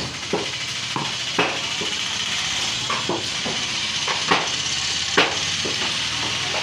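Large knife knocking against a wooden chopping block as it cuts through a seer fish near the head: a string of irregular sharp knocks, the loudest about five seconds in, over a steady background hiss.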